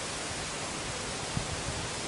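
A steady, even hiss with no pitch or rhythm, and a faint low bump about one and a half seconds in.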